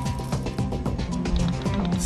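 Documentary soundtrack music: rapid percussive hits over held tones.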